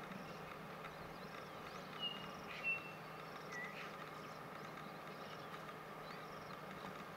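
Faint outdoor background with a steady low hum, broken by a few short, high whistled bird notes about two to three and a half seconds in.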